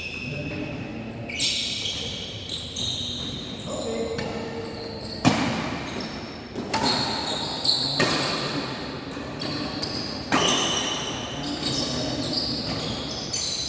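Badminton rally: several sharp racket strikes on the shuttlecock at uneven intervals, with short high-pitched squeaks and voices around them.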